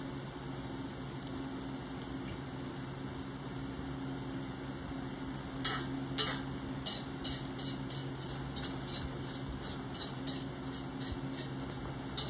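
A cockatiel and a budgerigar pecking at seed on a hard tabletop: a run of light clicks, about two a second, starting a little over halfway through. A steady low hum runs underneath.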